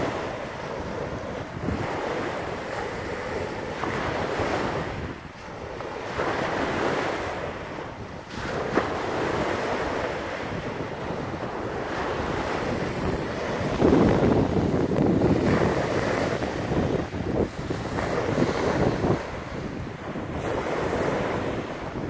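Wind-driven waves on a wide river breaking and washing up a sandy beach, surging every few seconds, with wind buffeting the microphone.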